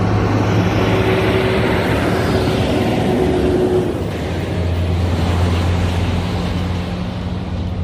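Heavy-haulage diesel truck towing an oversize load on a multi-axle trailer drives past: steady engine and tyre noise, easing a little as it moves off after about four seconds.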